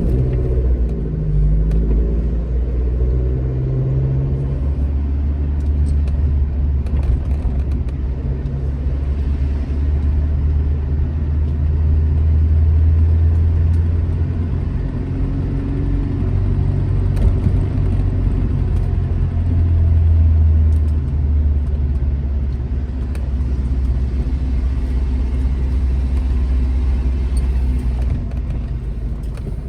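Alfa Romeo GT Junior's twin-cam four-cylinder engine running on the road under load, its revs rising and falling as it changes gear near the start and swelling twice later on.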